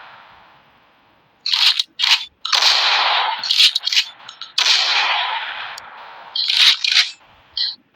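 Pump-action shotgun being fired, with shorter sharp clacks between the shots, typical of the slide being racked. The loudest shots each leave a long fading echo.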